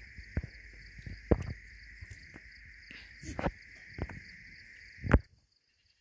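Steady drone of insects, with a lower and a higher band of sound, broken by several sharp knocks. The loudest knock comes about five seconds in, and the sound then cuts out suddenly.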